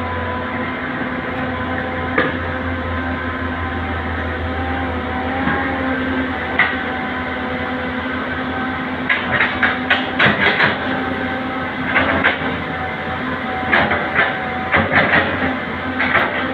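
Excavator engine running steadily, with a string of short clanks and knocks in the second half.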